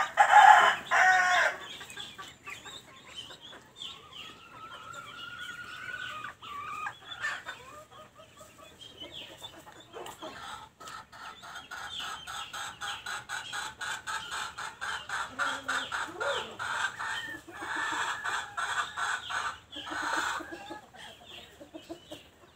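Domestic chickens clucking and calling. A loud call comes in the first second or so, and a long run of rapid repeated clucks fills the second half.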